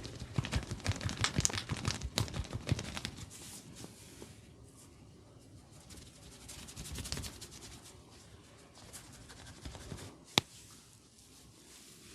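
Hands massaging a head: a fast run of taps for about the first three seconds, then softer rubbing, with one sharp crack about ten seconds in.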